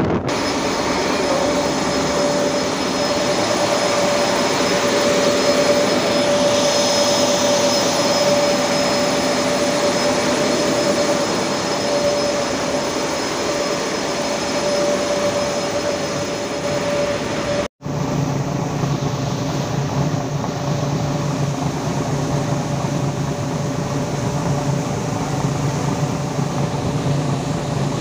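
Steady drone of a river passenger launch's engine under a rush of water and wind. The sound drops out for a moment about two-thirds through, and after that the hum is deeper.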